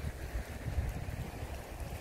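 Wind buffeting the microphone, an irregular low rumble over a steady rushing hiss.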